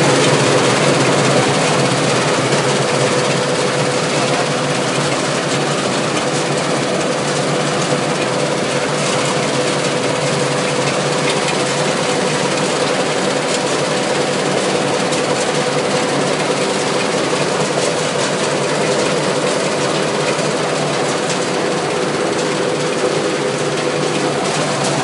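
Feed pellet production line machinery running: a steady, loud mechanical din with a constant hum and scattered faint clicks.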